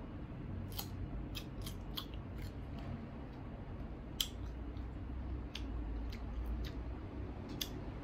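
Crisp crunching of a person biting and chewing firm, unripe green mango, a sharp crunch every half second or so, the loudest about four seconds in.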